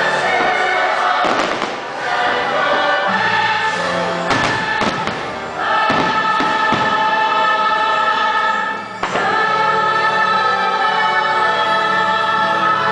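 Fireworks show soundtrack: a choir singing long held chords over orchestral music, with several firework bangs cutting through, the sharpest about four and a half seconds in and again about nine seconds in.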